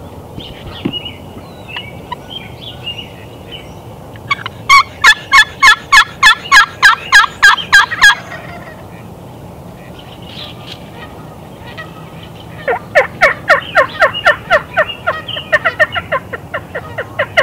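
Turkey call worked in two runs of hen yelps, a string of loud, evenly spaced yelps at about four a second. The second run is longer and starts lower in pitch. Faint songbird chirps sit in the background between the runs.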